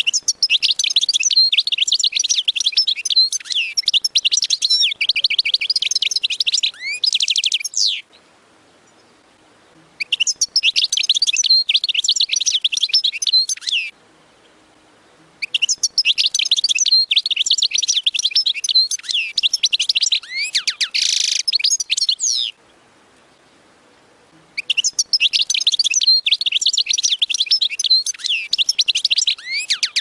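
European goldfinch singing in four long bouts of rapid high notes and trills, with pauses of a second or two between them.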